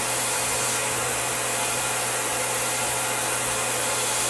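CNC milling machine spindle running steadily at top speed while a 20-degree engraving tool cuts shallow lettering into an aluminium plate: a constant motor hum and whine under an even hiss.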